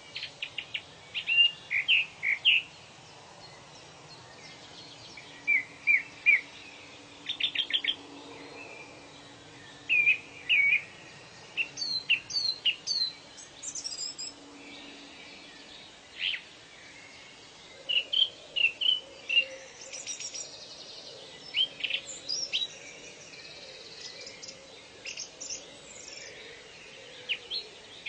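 Wild birds chirping and calling: short runs of quick chirps and whistled notes, coming every second or two, over a faint steady background.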